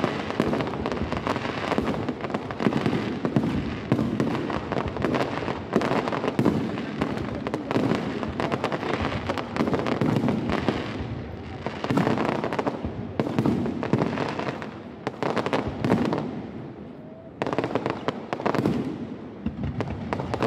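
Fireworks display: aerial shells bursting in quick, dense succession with crackling, easing off briefly about three-quarters of the way through before the bangs pick up again.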